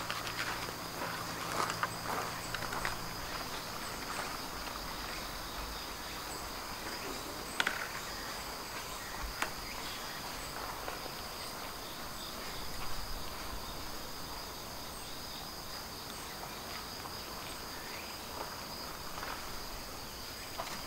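Steady high trilling of an insect chorus, with a faint chirp repeating higher up, broken by a few faint knocks, the sharpest about seven and a half seconds in.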